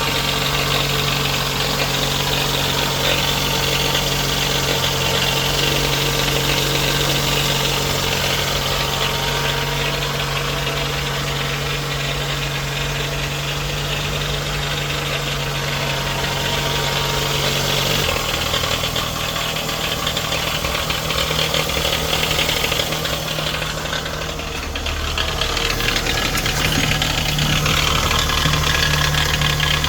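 Toyota 2AZ-FE 2.4-litre four-cylinder engine idling with a rattle, shown as an engine problem. Its note shifts down a little past halfway and dips briefly near the end before steadying again.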